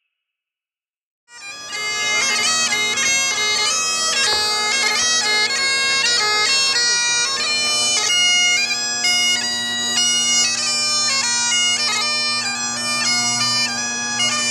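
Great Highland bagpipe playing a melody on the chanter over steady, unbroken drones, starting about a second in after a moment of silence.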